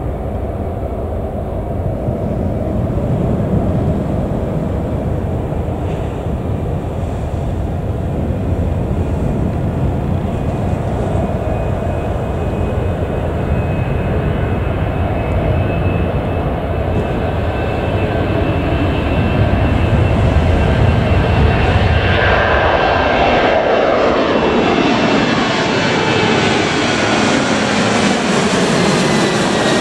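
Boeing 737-800's CFM56-7B jet engines at takeoff thrust: a steady, broad rumble during the takeoff roll. About two-thirds in, it turns into a sweep of falling tones as the airliner climbs out and passes overhead.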